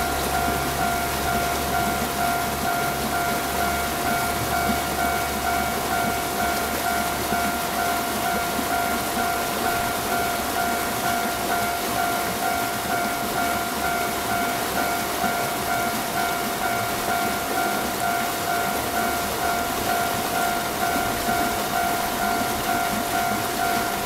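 Railway level-crossing warning bell ringing over and over at an even pace with a steady two-note tone, over a constant hiss of rain.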